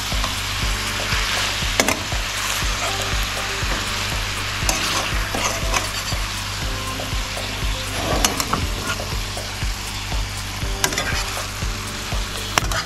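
Curried lobster and trunkfish sizzling in a stainless steel frying pan while a slotted spatula stirs and turns it, with the spatula scraping and clicking against the pan now and then.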